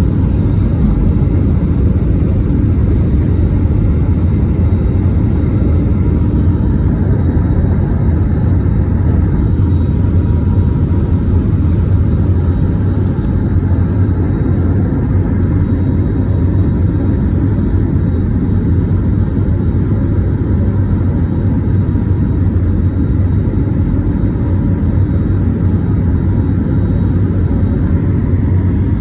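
Airliner jet engine at climb power just after takeoff, heard from inside the cabin as a loud, steady, deep rumble with a faint whine above it.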